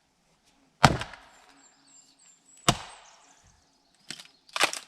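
Axe splitting dry balsam fir: two sharp chops about two seconds apart, each followed by a brief ring, then a few lighter knocks near the end.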